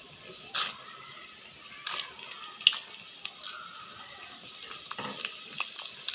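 Hot oil sizzling in a pan with mustard seeds, cumin, chana dal and urad dal frying in it for a tempering, with a few sharp pops scattered through.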